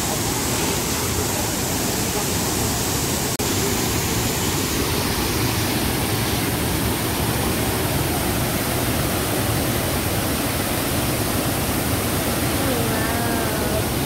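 Large waterfall in heavy flow, a steady rush of water pouring over rock and crashing into the pool below.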